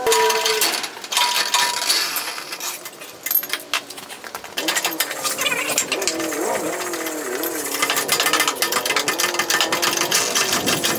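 Hydraulic bottle jack pumped by hand, with quick, rhythmic metallic clicking, as it presses a block down on a tyre's sidewall to break the bead off the rim. From about four and a half seconds in, wavering squeaks run over the clicking.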